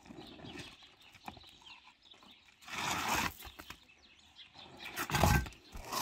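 A roll of bitumen roofing membrane being handled and shifted on an asphalt-shingle roof. A rustling scrape comes about three seconds in, and a louder scrape with a dull thump comes near the end.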